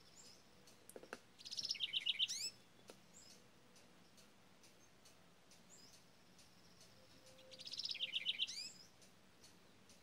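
House wren singing twice, each song a quick bubbling run of trilled notes lasting about a second, the second one about six seconds after the first. A few faint ticks come between the songs.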